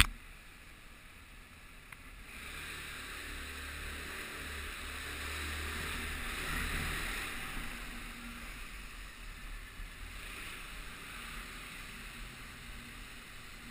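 Motor scooter moving off and riding slowly, heard as a muffled engine hum with rushing wind. The sound starts about two seconds in, swells, then settles to a steady level.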